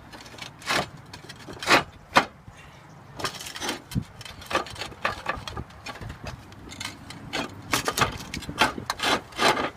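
Concrete roof tiles being pulled down and settled back into place, knocking and clacking against one another. The knocks are sharp and irregular, with a quick run of them near the end.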